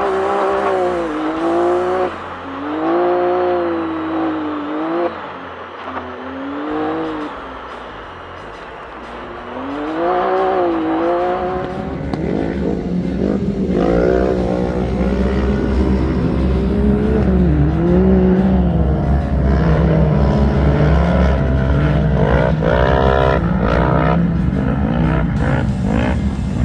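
Off-road race car's engine revving up and down under hard driving, its pitch rising and falling again and again. From about halfway a heavy low rumble and clattering join in.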